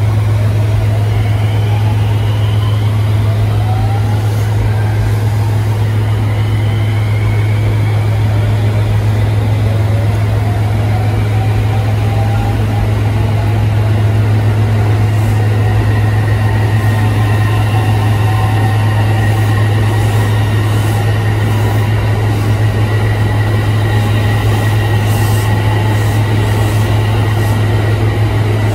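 JR West suburban electric train gathering speed on the next track: its motors whine in several tones that climb slowly in pitch, over a loud steady low hum.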